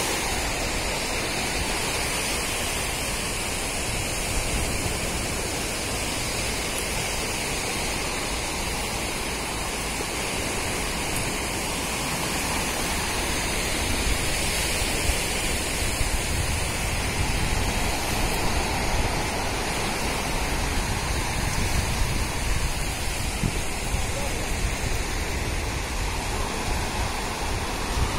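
Steady rushing noise of surf washing onto a beach, with wind on the microphone, a little louder and more uneven from about halfway.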